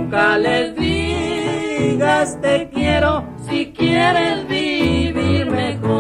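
Norteño song: a sung vocal line with vibrato over accordion and a pulsing bass.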